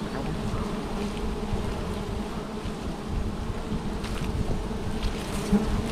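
Wild honeybees buzzing in a steady swarm hum around their nest as they pour out and fly about.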